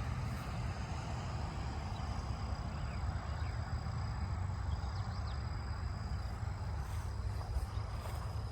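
Distant road traffic noise: a steady low rumble and hiss from passing vehicles, with a thin steady high tone and a few faint bird calls over it.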